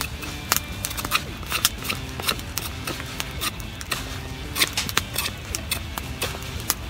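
Knife whittling a wooden stick: the blade bites and scrapes into the wood in irregular sharp cuts, one to a few a second.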